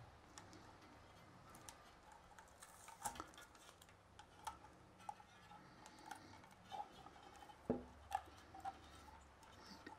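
Faint handling sounds of window screen, tape and wire on a PVC tube: scattered light clicks and rustles, with the sharpest click about three quarters of the way through.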